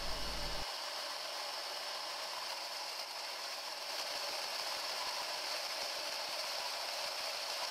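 3D-printed plastic gearbox driven by eight small 12 V DC motors, running steadily with a high whine.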